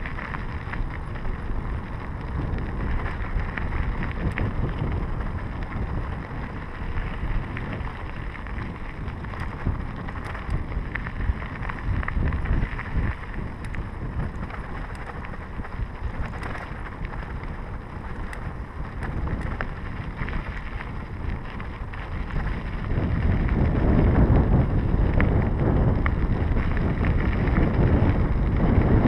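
Wind buffeting the microphone over the rolling noise of a Scott Scale 970 hardtail mountain bike's tyres on a dirt road, with scattered small clicks and rattles from the bike. The wind noise grows louder about three-quarters of the way through.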